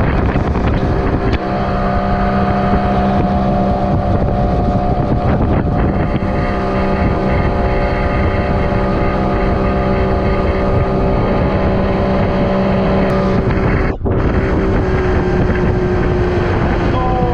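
Boat motor running steadily at speed, a loud drone with wind buffeting the microphone. The sound cuts out for an instant near the end.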